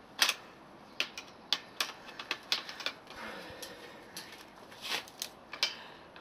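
Irregular metallic clicks and knocks as a bicycle rear wheel is handled and fitted into the frame's dropouts.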